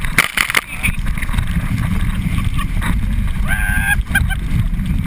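Wind buffeting the microphone and water rushing and splashing against an inflatable tube towed at speed behind a boat, with sharp splashes slapping the tube right at the start. A rider gives a brief yell a little past halfway.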